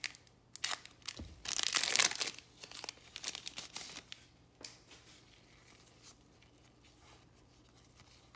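Wrapper of a 2021 Bowman baseball card pack torn open and crinkled in several short rips, the loudest about two seconds in, followed by fainter rustling of the cards.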